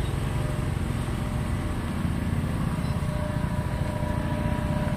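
Steady motor vehicle engine and road noise.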